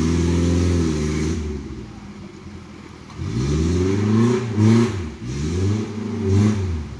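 Small Suzuki 4x4's engine pulling steadily, then easing off about a second and a half in. Later it revs up and down several times while crawling through mud.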